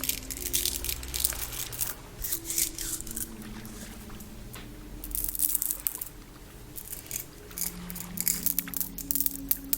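Close-up crackling and crinkling trigger sounds in irregular bursts, over a faint held low tone that moves slowly from one note to another.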